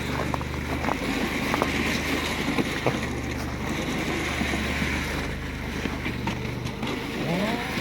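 A motor runs with a steady low hum under wind noise, with scattered small clicks and crunches; a brief rising squeal near the end.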